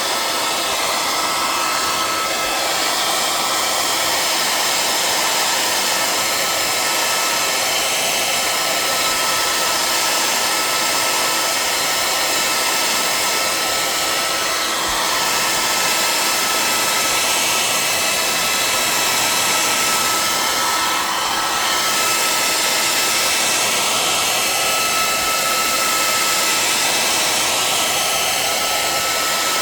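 Handheld hair dryer running steadily: an even rush of blown air with a thin, constant whine from its motor.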